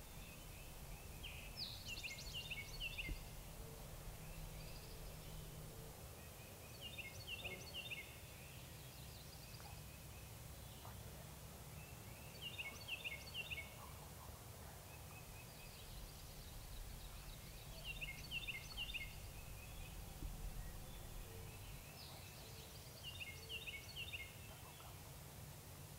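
A bird calling outdoors: the same short burst of quick, high chirping notes comes five times, about every five and a half seconds, over a faint low background rumble.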